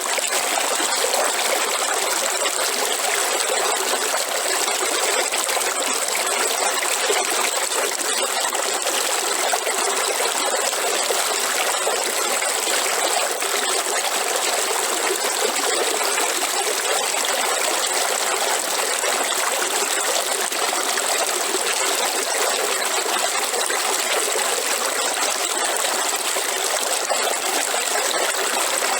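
River water flowing and trickling steadily, with a thin, steady high-pitched tone running above it.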